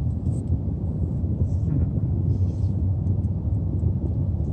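Steady low rumble of a car's engine and tyres, heard from inside the cabin as the car moves slowly.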